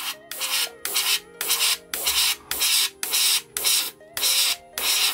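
Gundam Marker Airbrush spraying yellow Gundam Marker ink: compressed air hissing through the nozzle in short pulses, about two a second, as the trigger is pressed and released.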